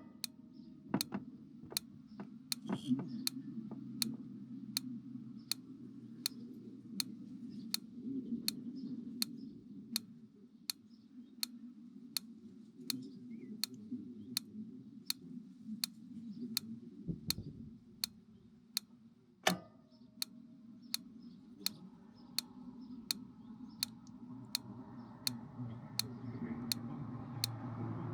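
Spark igniter of a motorhome's three-way gas fridge clicking in a steady rhythm, about three clicks every two seconds, over a low hum: it is trying to light the burner.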